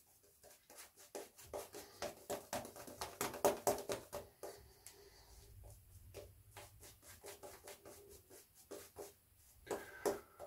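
Synthetic-knot shaving brush (Yaqi 24 mm) brushing on shaving lather with quick, repeated swishing strokes, for a second application of lather.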